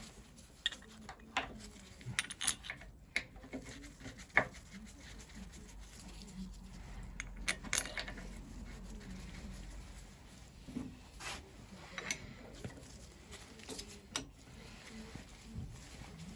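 Irregular light metallic clicks and clinks of small metal pipes, fittings and tools being handled as pipework is fitted to a Lister engine's fuel and oil pump.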